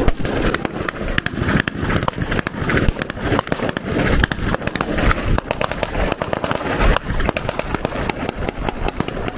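Rapid, irregular gunfire from blank-firing weapons, several sharp shots a second overlapping one another.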